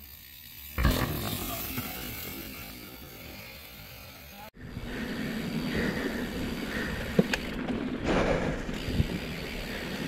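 Mountain bike landing off a wooden drop with a sharp thud about a second in, then tyres rolling away on dirt. After a sudden cut, steady rolling noise of the bike riding a dirt single track, with a couple of sharp knocks.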